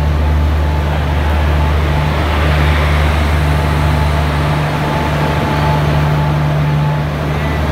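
Indian Railways WAG-5 AC electric locomotive rolling slowly past at close range, with a steady low hum under general running noise.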